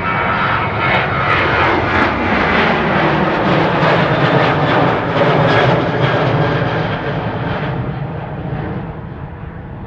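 A Boeing 737 jetliner's twin jet engines at takeoff power as it climbs out and passes. The roar swells to its loudest midway, then fades, with a whine falling in pitch as the aircraft goes by.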